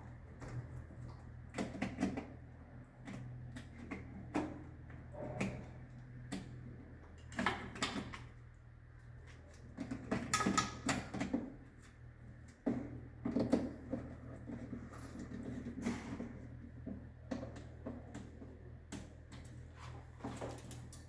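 Irregular clicks, knocks and scrapes of circuit breakers being handled and refitted in a distribution board, over a steady low hum.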